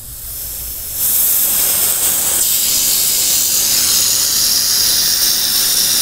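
Liquid LPG spraying from a gas cylinder's hose onto a refrigerator bimetal defrost thermostat, a steady hiss that starts softer and grows louder about a second in. The spray chills the switch below freezing to test whether it closes at sub-zero temperature.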